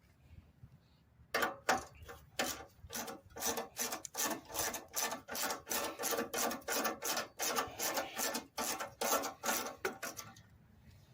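Rapid, even back-and-forth scraping strokes, about three to four a second, like a file or brush worked by hand; they start about a second in and stop near the end.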